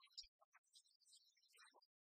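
Near silence, with faint scattered high ticks and a soft low bump about a quarter second in.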